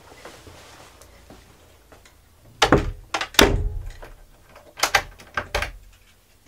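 A front door being pulled shut from outside: two heavy thuds about a second apart, then a few sharper knocks and clicks a second or so later.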